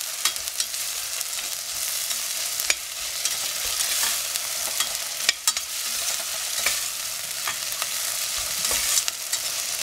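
Chopped tomato, onions and spices sizzling in hot oil in a stainless steel pressure cooker while a metal spoon stirs them, with frequent sharp clinks and scrapes of the spoon against the pot over a steady sizzle.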